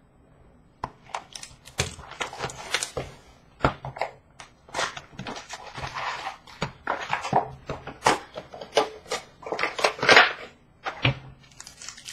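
Packaging of Upper Deck O-Pee-Chee Platinum hockey card boxes being handled and torn open: irregular crinkling, rustling and snapping of wrap, cardboard and foil packs.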